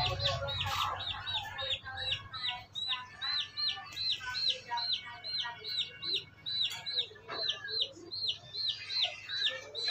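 Domestic chicks peeping steadily, about three short high cheeps a second, with hens clucking softly underneath.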